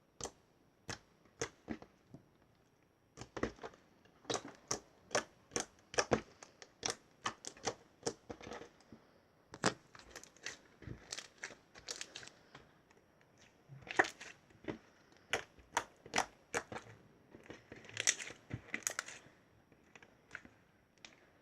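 Plain slime being worked by hand, giving a run of sharp, irregular clicks and pops, at times several a second, with a denser flurry near the end.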